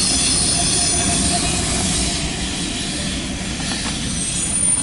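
CSX diesel freight train rolling past: a steady low rumble of locomotive and cars, with the high squeal of steel wheels on the rail. The squeal is strongest at the start, fades in the middle and comes back near the end.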